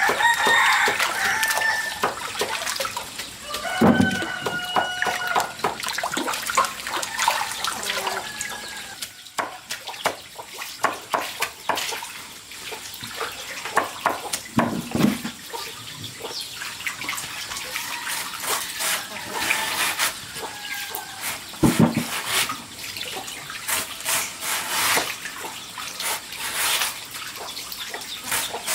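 Chickens clucking and calling at intervals over splashing, running water, with many sharp clicks and knocks throughout.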